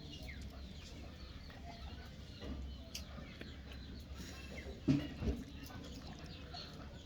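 Faint, short, high-pitched falling calls of young animals, repeated irregularly over a low background hum, with a low thump about five seconds in.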